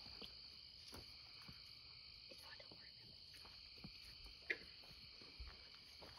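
Faint, steady chorus of crickets and other night insects, with scattered soft ticks and knocks and one sharp click about four and a half seconds in.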